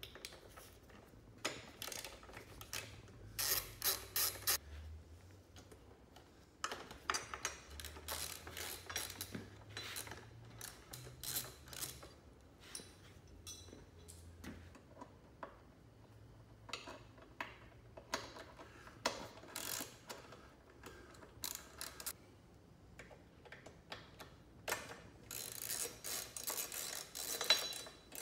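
Hand ratchet clicking in repeated bursts as bolts are undone with a Torx driver, with clinks of tool and metal parts between the bursts.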